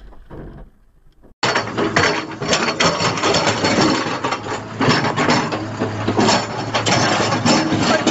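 Heavy machinery's steel bucket working in a pile of large boulders: a dense clatter of stones knocking and scraping against steel and each other, starting abruptly about a second and a half in, with an engine humming steadily underneath from about halfway.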